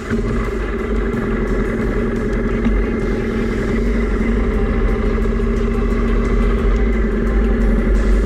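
Honda motorcycle engine idling steadily, heard from the bike itself. It grows slightly louder in the second half as the bike moves off.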